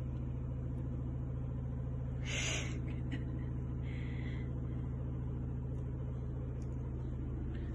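A steady low hum made of several pitched tones, with a short burst of hiss about two and a half seconds in and a fainter one about a second and a half later.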